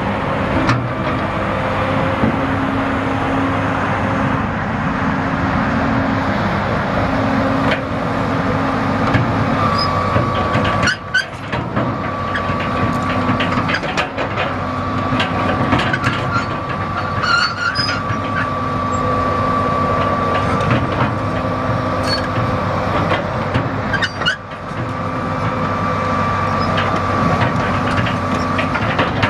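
The 6466A diesel engine of a 1987 John Deere 792LC excavator running steadily, with a steady high whine joining about ten seconds in and lasting until near the end.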